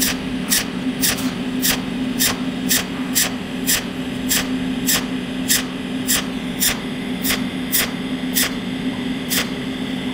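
Cold welding machine firing pulsed arcs from a tungsten torch onto sheet metal with filler wire fed in: a sharp snap about twice a second, evenly spaced, over a steady low electrical hum.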